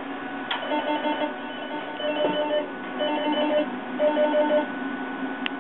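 Auto•Therm 390 shortwave diathermy unit sounding an electronic alarm: groups of rapid short beeps at fixed pitches, repeating about once a second. The unit's cooling fan hums steadily underneath, and there is a click as the beeping starts and another near the end.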